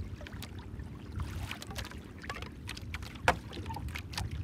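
Sea water lapping against a small wooden outrigger boat under a steady low rumble, with scattered sharp clicks and knocks as the longline and its hooks are hauled in by hand over the gunwale; the loudest knock comes about three seconds in.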